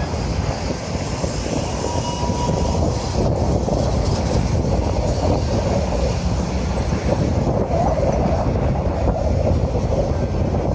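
Steady low rumble and running noise of a moving vehicle.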